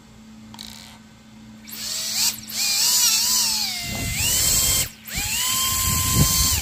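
Small 3D-printed 20 mm electric ducted fan spinning up on radio throttle: a high whine with rushing air that starts about two seconds in, its pitch rising and falling with the throttle, dropping out briefly about five seconds in, then rising again and holding steady at a high pitch.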